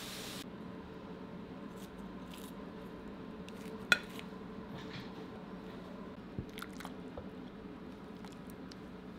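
Quiet kitchen room tone with faint clicks of food and utensils being handled; just under four seconds in, one sharp snip of kitchen scissors cutting through a pickled myeongi (Alpine leek) leaf.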